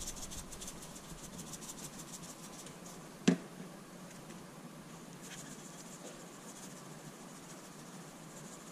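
Salt and pepper shakers being shaken over food, with quick runs of rattling shakes in the first two seconds and again about five seconds in. A single sharp knock about three seconds in is the loudest sound.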